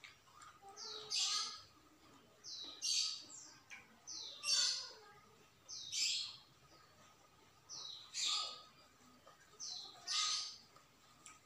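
A bird calling over and over, six times about every one and a half to two seconds; each call is a short rising note followed by a harsh, buzzy note.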